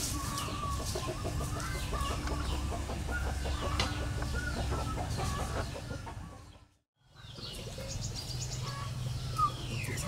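Fowl clucking with small birds chirping. The sound fades out to silence for about a second past the middle, then the clucking and chirping return.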